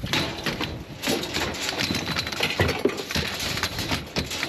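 Scrap metal clanking and rattling against a steel-mesh trailer cage as a metal frame is shoved in, with many irregular knocks and scrapes.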